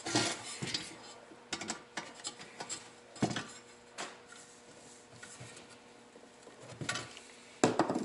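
Irregular small metal clicks and clinks from a Phillips screwdriver and screws fastening a pilot assembly bracket onto a Lennox WhisperHeat G20 gas furnace burner, with a few sharper knocks.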